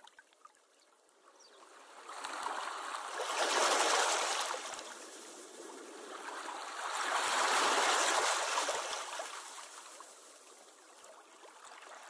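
Sea surf: waves washing in, in two slow swells that build to a peak about four seconds in and again about eight seconds in, each ebbing away.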